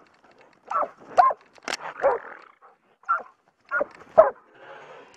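Bear-hunting dog barking at bay: about seven short, sharp barks, mostly in pairs, close to the microphone.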